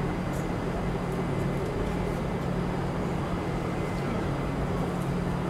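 Steady city background noise: a wash of distant traffic with a constant low hum beneath it.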